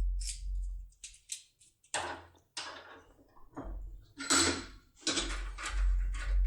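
Handling noises from a lock cylinder, key and tools: a string of irregular clicks, clacks and scrapes, the loudest about four and a half seconds in.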